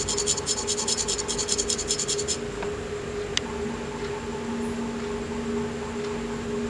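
Needle file scraped in rapid, even strokes across a diecast metal toy car body, stopping about two and a half seconds in. A single sharp click follows, over a steady low hum.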